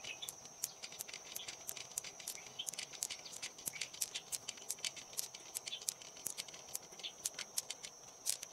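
Small pearls clicking against one another and the mussel shell as fingers scoop them out: quick, irregular clicks and rattles. A steady high-pitched whine runs underneath.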